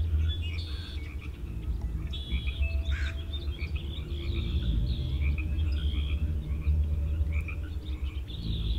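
A dense chorus of short, repeated chirping animal calls over a steady low rumble.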